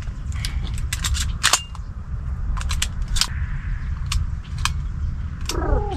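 Wind buffeting the microphone, with scattered sharp clicks and rattles of gear being handled. Near the end a bird starts calling, a few harsh calls.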